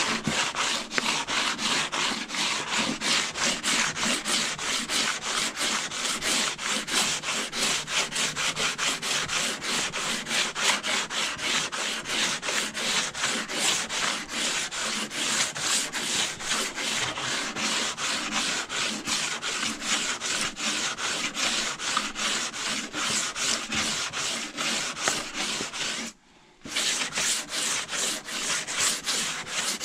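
Sandpaper being worked by hand over a car's steel fender: quick, even back-and-forth rasping strokes, the rubbing down of bodywork during rust repair. It breaks off for about half a second near the end, then carries on.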